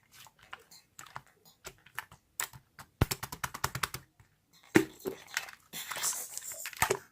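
Quick, irregular small clicks and taps, with a denser patch of rustling near the end.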